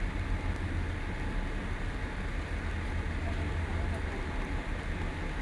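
Boeing 787 cabin noise during the landing rollout: a steady low rumble from the wheels and engines under an even rush of air.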